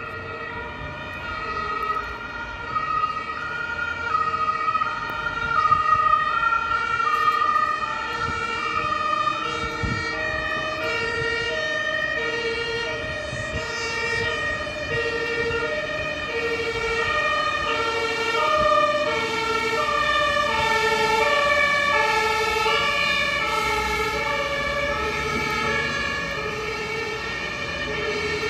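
Two-tone German emergency-vehicle sirens (Martinshorn) of several fire engines and ambulances sounding at once, each alternating between a high and a low note about every half second and overlapping out of step. They grow louder over the first few seconds as the vehicles approach.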